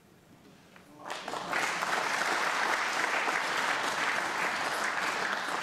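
Audience applauding a snooker shot that has left the opponent snookered. The clapping starts about a second in, swells quickly and holds steady.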